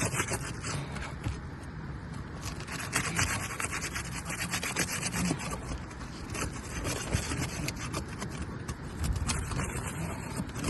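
Asphalt shingles being pried loose, with irregular scraping and crackling throughout as they come free and the fiberglass of the shingles above tears. The tearing is a red flag that the roof is old and brittle.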